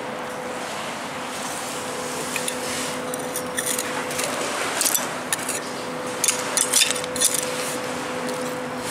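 Pebbles and shingle on the foreshore clinking and crunching as a trowel scrapes among them, with scattered sharp clicks between about two and eight seconds in, over a steady low hum and hiss.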